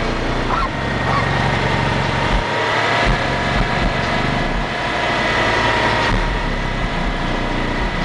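Six FU Audio 15-inch car subwoofers playing bass-heavy music very loud. Deep bass notes pulse on and off in time with the beat, and they drop out briefly about two and a half seconds in.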